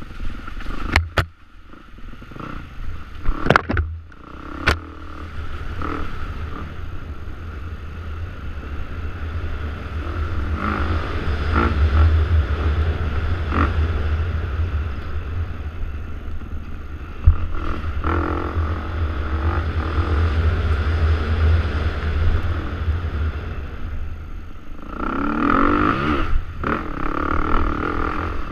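Enduro dirt bike's engine rising and falling with the throttle, heard from the rider's helmet camera under heavy wind buffeting on the microphone. Several sharp knocks in the first few seconds from the bike hitting rough ground.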